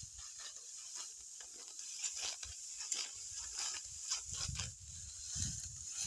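Sickle cutting through dry wheat stalks by hand: an irregular run of crisp crunches and rustles of dry straw, with bursts of low rumbling in the second half.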